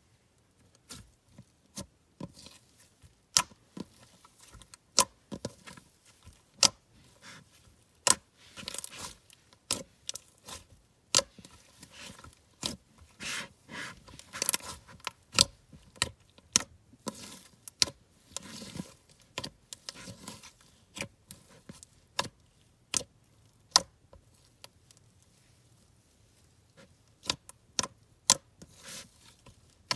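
Cloud cream slime being pressed, poked and stretched by hand: irregular sharp clicks and pops, with longer crackling stretches in between.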